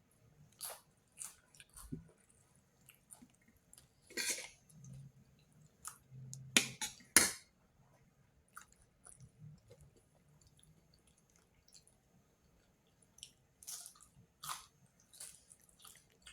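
A cat chewing and crunching its food in irregular clusters of bites, loudest about seven seconds in, with quieter stretches between.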